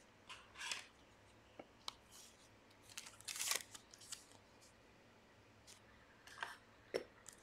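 Faint handling sounds of a trading card and a clear hard plastic card holder: short scrapes and light clicks as the card is slid into the case, the loudest cluster about three seconds in.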